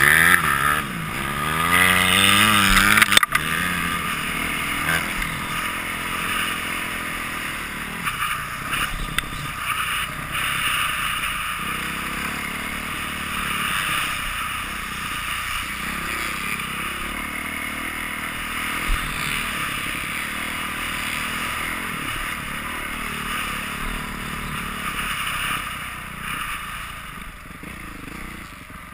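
Dirt bike ridden round a motocross track, heard from an onboard camera: the engine revs climb in pitch over the first few seconds, then there is a sharp knock. After that the engine runs under a steady rush of wind noise, with rattles over the bumps.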